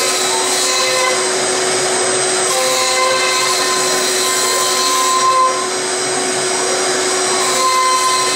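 Five-axis CNC milling machine's spindle running as an end mill cuts into a block of rough wood. It makes a steady whine over the cutting noise, with higher tones that come and go as the cutter works along the cut.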